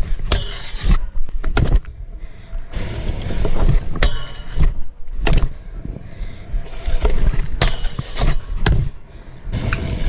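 Stunt scooter's wheels rolling over concrete, a steady rumble broken by repeated sharp clacks and knocks from the deck and wheels hitting the ground.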